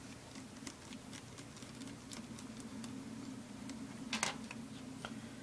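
Faint scattered clicks and ticks of a replacement laptop LCD panel and its screws being handled and fastened into the lid, with a slightly louder click about four seconds in, over a steady low hum.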